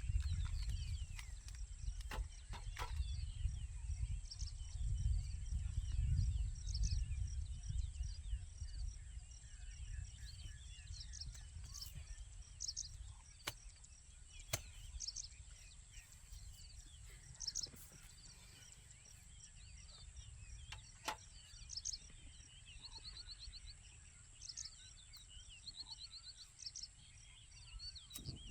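Outdoor nature ambience: small birds chirping on and off, with a couple of rapid trills in the second half, over a steady high drone. A low rumble, loudest in the first third, fades away, and there are a few scattered sharp clicks.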